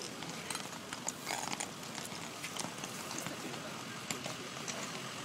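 Indistinct crowd voices with scattered sharp clicks and knocks.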